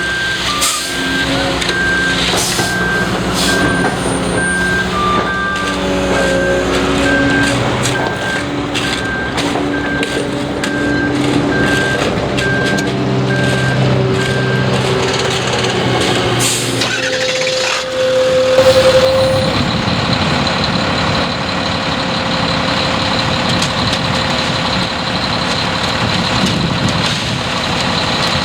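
Concrete mixer truck's diesel engine running while its reversing alarm beeps about once a second for roughly the first half. Past the middle a short sudden hiss, typical of an air brake, then a steady rushing hiss to the end.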